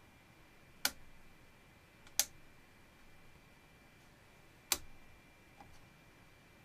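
Three sharp single clicks, irregularly spaced a second or more apart, then a fainter click, over a faint steady high-pitched tone.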